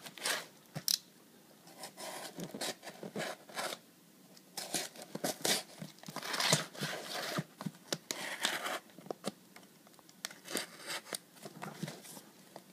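Packing tape on a cardboard shipping box being cut and torn open, in short irregular scraping strokes with cardboard rustling and tapping.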